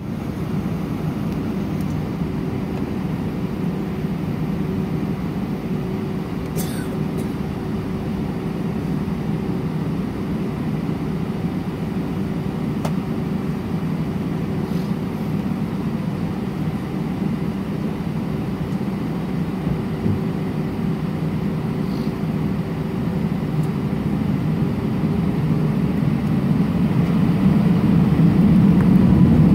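Airbus A320 jet engines and cabin air droning steadily, heard from inside the passenger cabin as the airliner taxis, with a low hum running through it. The drone grows louder over the last few seconds.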